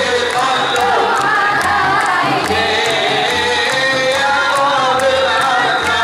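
Terbang jawa (srakal) ensemble performing: several voices singing together in a devotional chant, over Javanese frame drums beating a steady rhythm and the bright, regular jingle of a genjring (jingled frame drum).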